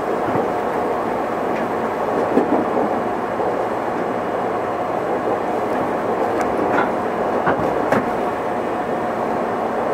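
Running noise heard inside a JR West 213 series 0-subseries electric train in motion: a steady rumble of wheels on rail with a faint steady whine, and a few sharp clicks in the second half.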